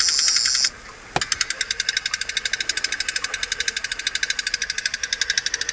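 Fishing reel being cranked to reel in a hooked fish: rapid, even clicking at about ten clicks a second. It stops briefly about a second in, gives a single click, and then resumes.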